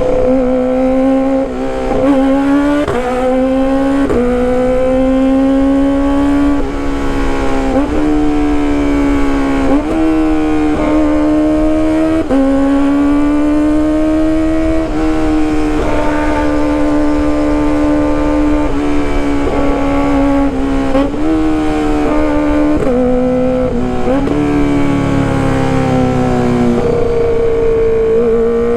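Kawasaki ZX-25R's high-revving 250 cc inline-four sportbike engine and exhaust under riding load. Its high-pitched note climbs with the revs and drops sharply at each gear change, with several quick shifts early, a steady cruise in the middle, then more rises and a drop near the end.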